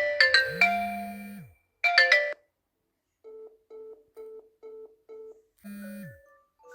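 Phone call ringtones from messaging apps played one after another. A quick marimba-like ringtone melody cuts off about a second and a half in, a short snatch of it follows, then five short even beeps at one pitch. Another chiming ringtone starts near the end.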